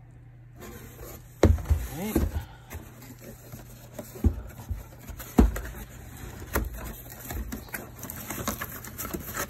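Cardboard toy boxes knocking and thumping against a large cardboard carton as they are handled and set down in it: a handful of sharp knocks, two of them loudest, with scraping in between.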